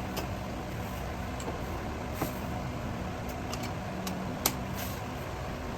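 A steady low rumble with a few sharp clicks of hand tools on the car's underside as fasteners are checked for tightness; the loudest click comes about four and a half seconds in.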